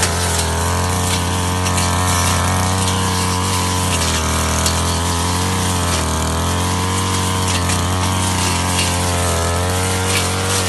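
Ogawa two-stroke brush cutter running at high revs while cutting tall grass and brush. Its engine note sags slightly now and then as the blade bites into the growth.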